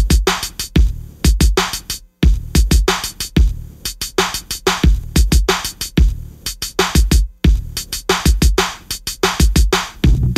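Background electronic music with a fast, heavy drum-machine beat and deep bass, breaking off briefly twice, about two seconds in and again about seven seconds in.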